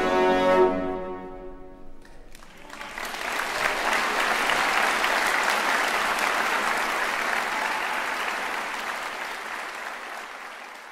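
A string orchestra's final chord rings away over about two seconds, then a concert-hall audience breaks into applause that slowly fades out near the end.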